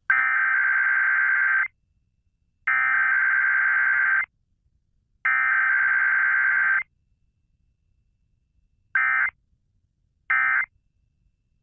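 Emergency Alert System SAME data tones: three header bursts of the harsh, buzzy two-tone data signal, each about a second and a half long and about a second apart, then two short bursts of the end-of-message code near the end.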